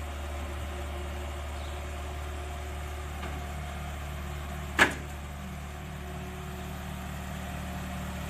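Tow truck's engine running steadily to drive the hydraulics as the tilted flatbed is lowered, with one sharp metal clank about five seconds in as the bed comes down.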